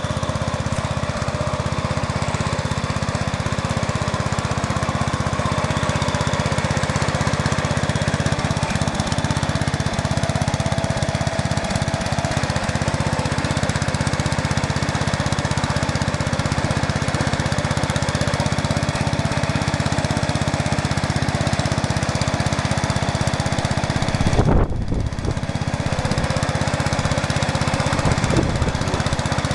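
Sears Suburban 12 garden tractor's Briggs & Stratton engine running steadily under load as it drags three spruce logs through mud. A brief thump near the end.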